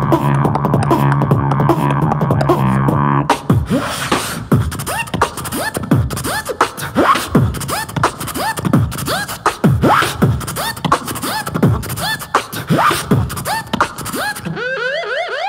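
Live beatboxing into a handheld microphone, every sound made with the mouth and voice. It opens with a held buzzing tone over a steady low note that cuts off suddenly about three seconds in. A beat of sharp drum-like clicks and snaps follows, laced with repeated sliding pitch sweeps.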